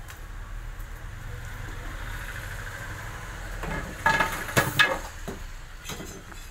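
Large potter's wheel spinning with a steady low rumble. About four seconds in come a few loud knocks and clatters.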